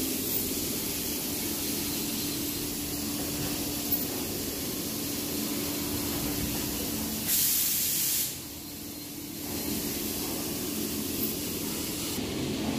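CNC vertical machining centre drilling a metal die block with a twist drill under flood coolant: a steady hiss of spraying and splashing coolant over a steady low tone from the machine. About seven seconds in, the hiss grows louder for about a second, then the sound drops back briefly.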